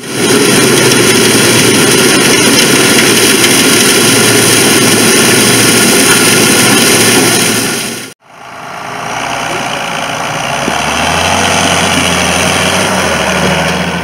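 Claas combine harvester running in a standing corn crop: a loud, steady machine noise that cuts off about eight seconds in. Machinery noise then fades back in with a steady low engine hum that grows louder toward the end.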